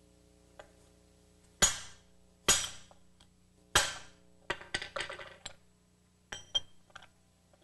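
Hammer blows on a steel bridge and bushing driver, pressing a new bushing into a control arm held in a vise: three sharp, ringing metal strikes about a second apart, followed by a run of lighter metal clinks and taps.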